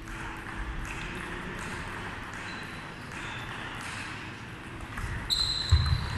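Table tennis rally: the ball clicking off the bats and the table, over the hum of a large hall, with the hits getting louder near the end.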